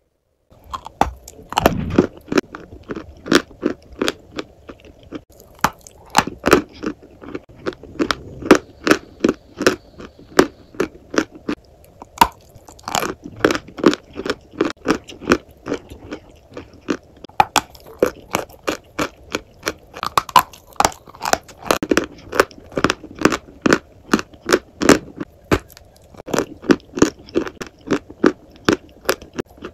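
A person biting and chewing crunchy food: a dense run of sharp crunches, about two or three a second, with chewing between them.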